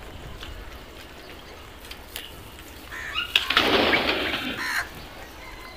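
Wings of several house crows flapping as they take off together: a loud rush of flapping about three seconds in, lasting nearly two seconds.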